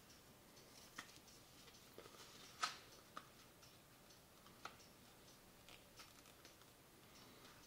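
Faint rustling and crackling of a sheet of paper being folded by hand and its crease pressed flat, with a few sharp crinkles, the loudest a little before halfway through.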